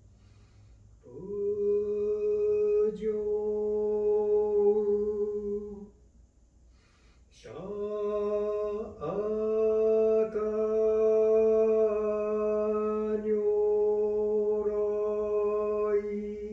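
A solo male voice chanting a Buddhist sutra in long, drawn-out held notes. There are two phrases, with a break for breath about six seconds in.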